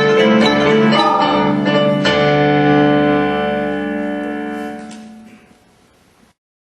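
Instrumental music ending: a few struck chords, then a final chord held and fading away, cut off into silence about six seconds in.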